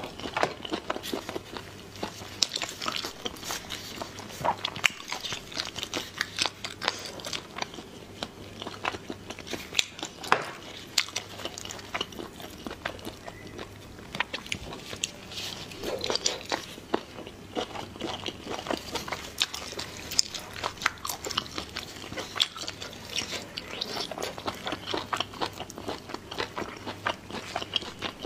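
Close-miked eating of spicy snails: chewing and biting into snail meat, with the shells and plastic-gloved fingers handled, heard as a dense run of small clicks.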